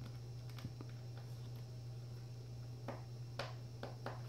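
Small screws being worked out of a tablet's frame with a precision screwdriver: a few faint, sharp clicks and taps, most of them in the last second and a half, over a steady low hum.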